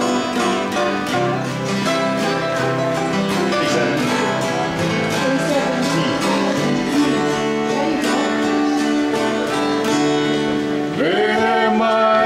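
Acoustic guitars strumming and picking an instrumental passage of a Hawaiian song in a steady rhythm. Singing comes in about a second before the end.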